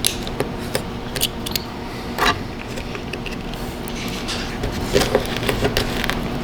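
Irregular clicks and knocks of hand work with tools and hardware, over a steady low hum.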